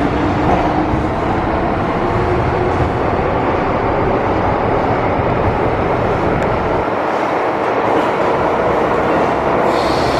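Cabin running noise of an MTR Island Line M-train (Metro-Cammell electric multiple unit) travelling through the tunnel: a steady rumble of wheels on rail and running gear. The low rumble thins about seven seconds in, and a higher tone joins near the end.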